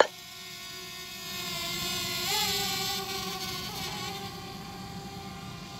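DJI Mavic quadcopter's propellers whining steadily as it climbs just after takeoff. The pitch rises briefly and the sound swells about two seconds in, then settles.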